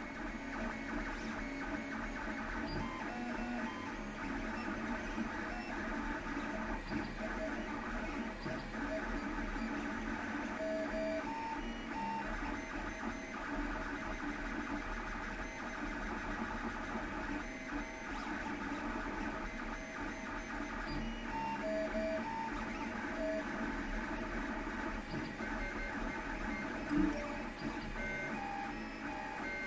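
Lulzbot TAZ 6 3D printer running a print: its stepper motors whine in many short, quickly shifting tones as the print head moves, over a steady low hum. There is one brief louder sound near the end.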